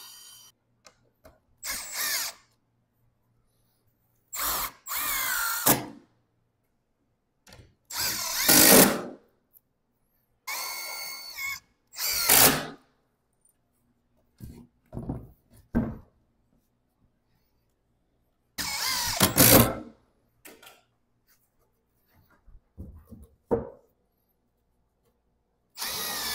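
Cordless drill driving screws through OSB sheathing into a 2x4 frame: about eight separate runs of one to two seconds each, some rising in pitch as the motor spins up, with small knocks in between.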